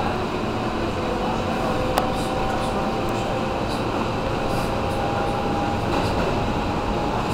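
Interior of a moving R160B subway car with Siemens propulsion: steady running rumble and wheel-on-rail noise, with faint steady tones from the propulsion. A single sharp click comes about two seconds in.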